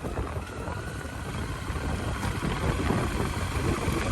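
Motorcycle being ridden along a road, its engine and tyre rumble mixed with wind buffeting the microphone.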